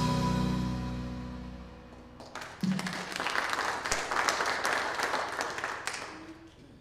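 The band's final chord rings out and dies away. About two seconds in, an audience starts applauding, and the applause fades out near the end.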